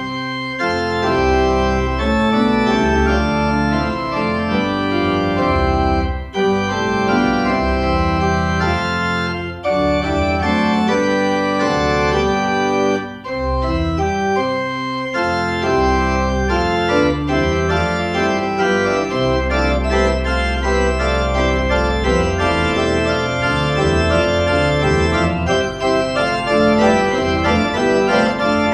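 Church organ played at a multi-manual console: full, sustained chords changing every second or so over deep pedal bass notes.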